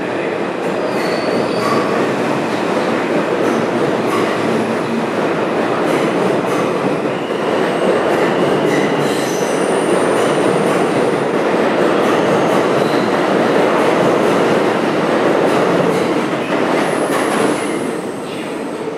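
New York City Subway R160B train pulling out of an underground station and running past close by: a steady loud rumble of wheels on rail, with a few brief high wheel squeals. It fades as the last car leaves, near the end.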